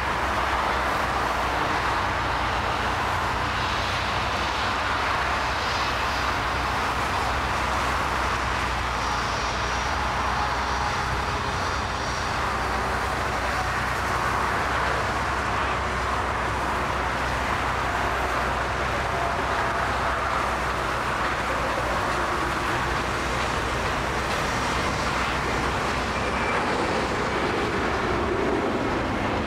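Boeing 747's four jet engines at take-off thrust, a steady heavy roar through the take-off roll, lift-off and climb-out.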